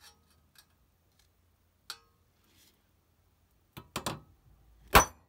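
Hammer striking a steel punch held against a handsaw's steel plate: a few light clicks as the punch is set, three quick taps almost four seconds in, then one hard blow about a second later.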